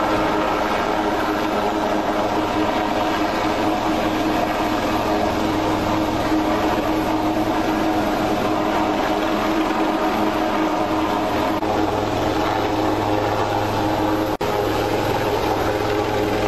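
Advanced Light Helicopter (HAL Dhruv) hovering: its turbine engines and rotor make a loud, steady noise with a constant hum in it. The sound cuts out for an instant near the end.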